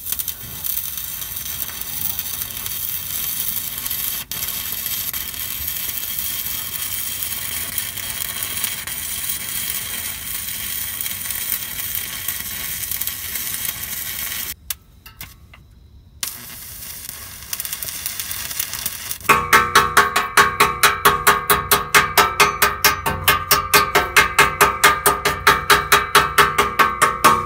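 Stick-welding arc crackling steadily as a flux-coated rod burns against steel exhaust pipe, breaking off for about a second and a half midway and then striking up again. For the last eight seconds the sound is louder and pulses evenly, about five times a second, over a buzzing tone.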